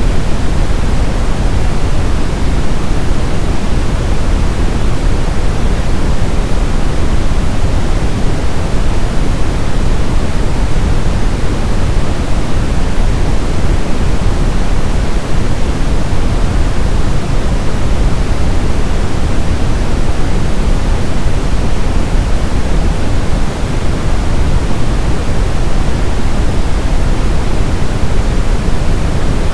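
Brown noise: a steady, loud, deep hiss weighted to the low end, unchanging throughout.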